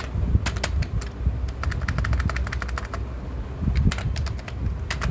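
Computer keyboard typing: rapid key clicks in several irregular bursts as a folder name is typed, over a steady low hum.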